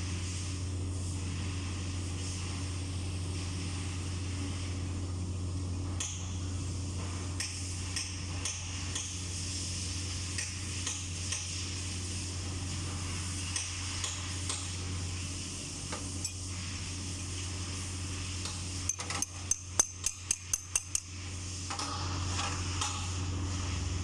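Hand work on metal parts of a skid loader's travel motor: scattered light clinks and taps, then a quick run of about nine sharp hammer strikes on metal, about four a second, near the end. A steady low hum runs underneath.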